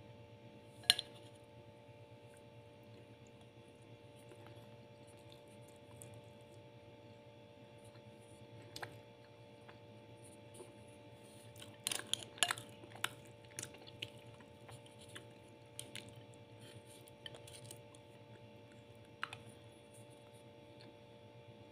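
Faint eating sounds: a plastic spoon scooping rice and clicking against a plate, with scattered sharp clicks and a quick cluster of them about twelve seconds in. A steady hum runs underneath.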